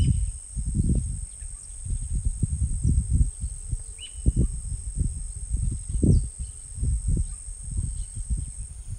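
Natural outdoor ambience: insects keep up a steady high-pitched drone while a few birds give short faint chirps. Irregular low gusty rumbles of wind on the microphone are the loudest sound throughout.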